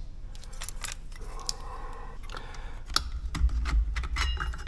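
Steel and fiber motorcycle clutch discs clicking and clinking against each other as they are handled and stacked, with a short metallic ring near the end.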